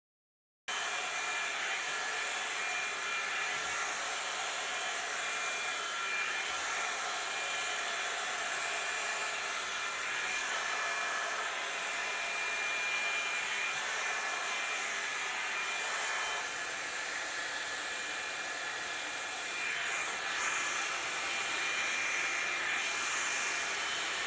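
Revlon One-Step hot-air brush dryer running steadily on a low-to-medium setting: a steady fan hiss with a thin high whine. The sound shifts slightly a couple of times near the end as the brush is worked through the hair. It begins after a short dead-silent gap, an edit cut.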